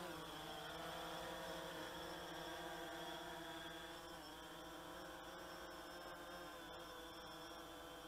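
DJI Phantom 3 Standard quadcopter hovering just after takeoff, its motors and propellers giving a steady, pitched whine. The whine drops a little in level about four seconds in as the drone moves off.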